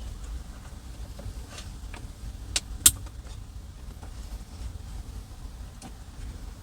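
Two sharp plastic clicks about a third of a second apart, about halfway through, with a few fainter ticks around them, as the door's window switch is worked into place on the trim panel. A steady low rumble runs underneath.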